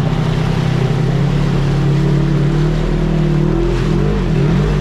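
Side-by-side UTV's engine running steadily under throttle while driving. Near the end the revs waver down and back up a couple of times before settling again.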